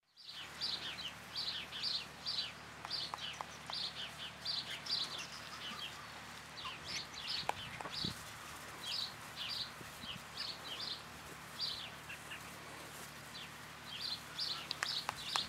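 Small birds chirping: short high chirps in clusters about once a second, with a few sharp clicks around the middle.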